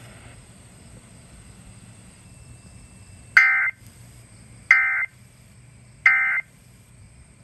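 Three short, buzzy bursts of Emergency Alert System end-of-message data tones, about a second and a half apart, heard over an FM radio broadcast. They signal the end of the alert message.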